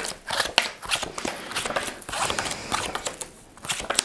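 Tarot cards being handled and laid out on a table: irregular papery rustles and short clicks.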